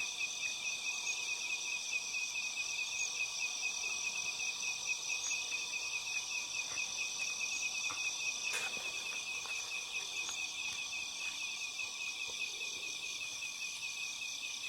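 A steady chorus of forest insects, several trilling at different pitches with a rapid pulse. A few faint clicks come about halfway through.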